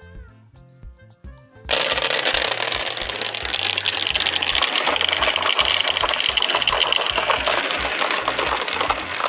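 Background music with a steady beat; about two seconds in, a loud, dense rattle of many marbles clattering down a marble run starts and keeps going.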